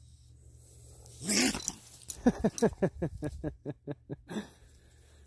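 Raccoon caught in a foothold trap growling defensively: one loud call about a second in, then a rapid run of short calls, about six a second, for around two seconds.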